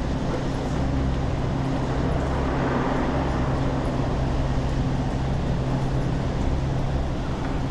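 Steady traffic and engine drone with a low, even hum underneath; no single event stands out.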